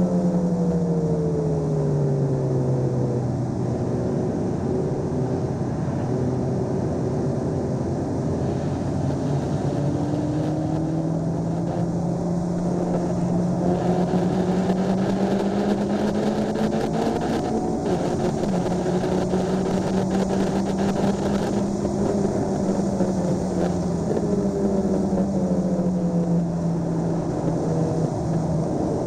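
Honda Civic Si's four-cylinder engine at high revs under track driving, heard from inside the cabin. Its pitch falls over the first few seconds, climbs slowly for a long stretch with a brief dip about two-thirds of the way through, then eases down near the end. A rattly noise is added over it in the middle.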